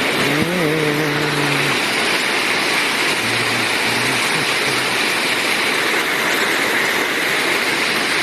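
Steady loud rush of heavy rain and floodwater. A car engine revs up briefly about half a second in, and a lower engine note comes back in short stretches a few seconds later.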